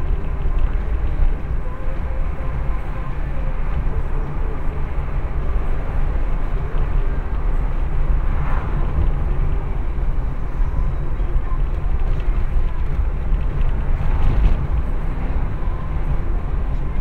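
Steady low rumble of road and engine noise inside a moving car's cabin, with two brief swells, one about halfway through and one near the end.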